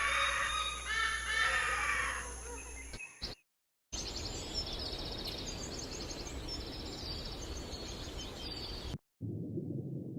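Crows cawing, repeated harsh calls for about three seconds, then a cut to silence. Next, small birds chirping high over steady outdoor noise for about five seconds. Near the end a muffled, low underwater-sounding rumble begins.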